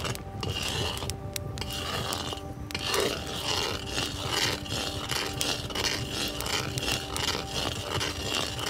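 Background music with held tones, over the irregular scraping of a long stick stirring thick, simmering pomegranate paste in a pot.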